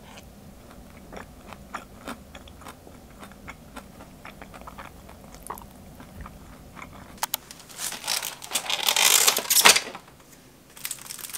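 Quiet eating sounds: chewing and small scattered clicks at a meal. About seven seconds in, a much louder stretch of plastic crinkling as a plastic-wrapped pound cake is taken out of its box.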